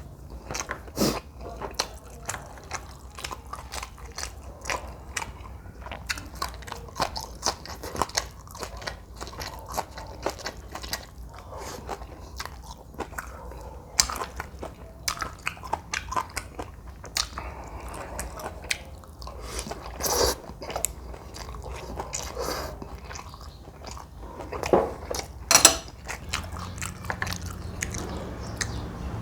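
Close-miked eating sounds of a person chewing a jjajangmyeon meal with scallion kimchi: a dense run of quick mouth clicks and smacks, with a few louder bursts in the last third.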